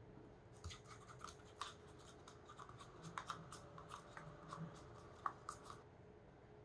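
Metal spatula stirring and scraping a thick red mixture in a small paper cup: a faint run of light, irregular clicks and scrapes that stops near the end.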